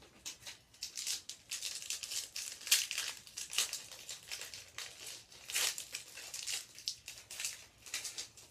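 A trading card pack's wrapper being torn open and crinkled by hand, an irregular run of crackles and rustles, loudest about three seconds in and again near six.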